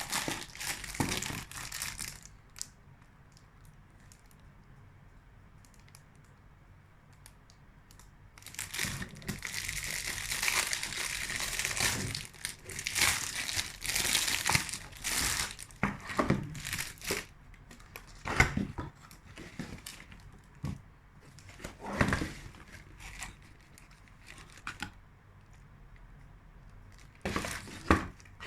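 Crinkling and rustling of the wrapping on a box of wrapped chocolate bonbons as it is handled and opened. It comes in irregular bursts: one brief burst at the start, a long continuous spell in the middle, then scattered short crinkles and a last burst near the end.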